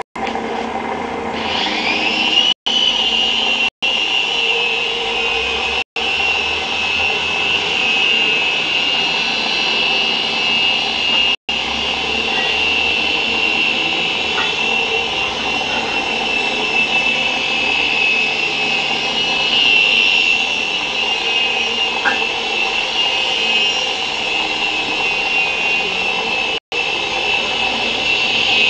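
JinXinDa 325 RC helicopter spooling up: a high whine from its motor and rotor rises in pitch about one and a half seconds in, then holds steady as it hovers. The sound drops out for an instant several times.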